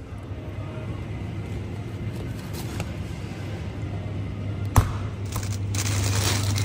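Supermarket ambience with a steady low hum from the freezer cabinets. A sharp click comes nearly five seconds in, followed by a short noisy rustle near the end.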